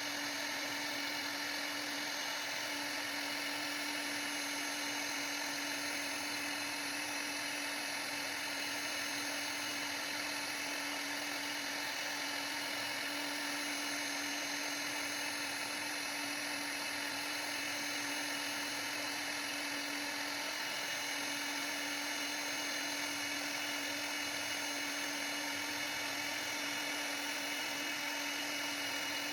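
CNC router spindle running while cutting, a steady whine that holds unchanged throughout.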